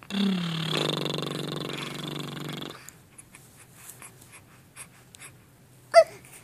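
Baby making a long, low, rough grunt that lasts about two and a half seconds and sags slightly in pitch. A short, high squeak follows near the end.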